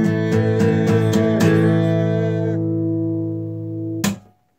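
Acoustic guitar strummed in quick, even strokes, about four a second, then a last chord left to ring and slowly fade. About four seconds in, a sharp knock cuts the ringing off.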